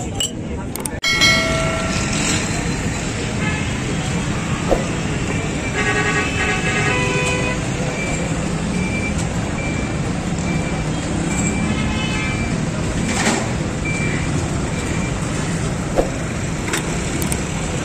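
Busy street ambience: steady traffic and engine noise with crowd hubbub, a few horn toots and a short high beep repeating about once every three-quarters of a second through the middle.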